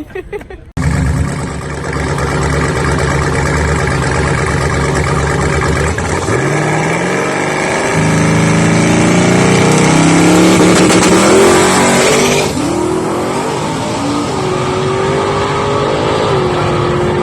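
1968 Camaro drag car's engine at full throttle on a quarter-mile pass, its pitch climbing and stepping through gear changes. About twelve seconds in the throttle is lifted and the engine falls away to a lower, steadier note. The car is hooked, running without tire spin.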